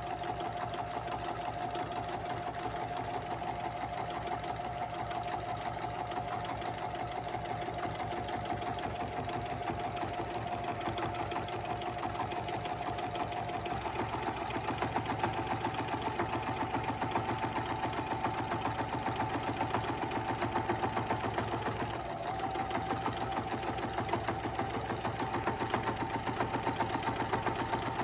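Pfaff sewing machine running continuously as it topstitches a long seam, a fast, even stitching rhythm over a steady motor hum. The hum rises slightly in pitch as the machine speeds up about halfway through, dips briefly about three quarters of the way in, then picks up again.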